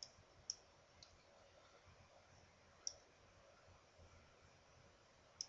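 Computer mouse clicking, a few separate sharp clicks a second or more apart, as pieces are picked up and dropped on an on-screen chessboard. Faint room hiss lies between the clicks.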